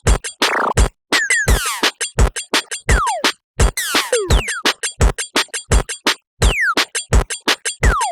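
Upbeat electronic background music: a drum-machine beat with a steady kick drum and short clicks, under quick downward-sliding synthesizer blips.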